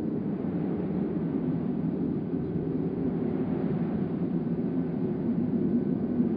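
A steady low rumble with no pitch or rhythm.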